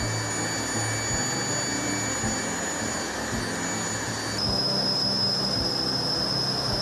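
Jet turbine engine running, a steady rushing with a high-pitched whine. The whine changes pitch abruptly about four and a half seconds in.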